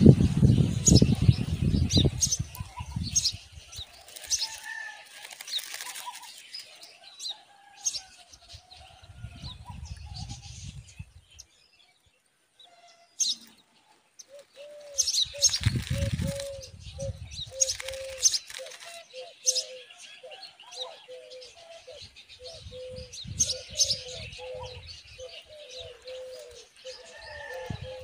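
Common myna moving about at a nest of begging nestlings: wing flaps and rustling in the dry grass, with sharp clicks and thin chirps. After a short break about halfway, a run of short, low, wavering bird notes repeats several times a second.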